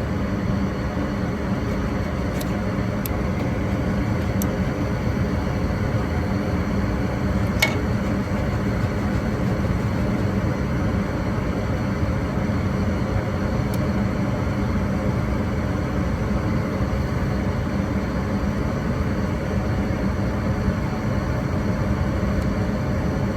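Gas furnace firing: the inducer draft motor and burners run with a steady hum, and a few faint clicks come a few seconds in. The circulating blower is not coming on, which the technician leans towards blaming on a bad control board.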